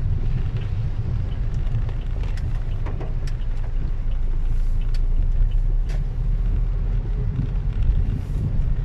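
Steady low rumble of a moving vehicle, with scattered small clicks and knocks.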